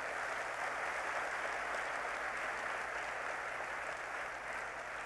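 Large auditorium audience applauding steadily, easing off slightly near the end.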